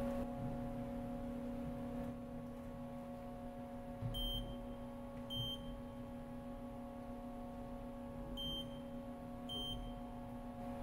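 Haas CNC mill running a spindle-probe corner probing cycle: a steady machine hum, with four short high beeps in two pairs, each with a faint knock, as the probe tip touches off the sides of the part.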